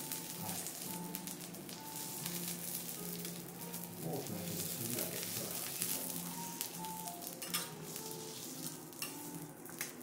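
Wagyu beef sizzling on a hot teppanyaki steel griddle as a knife and spatula trim it. Near the end come a few sharp clicks of the metal blades against the griddle.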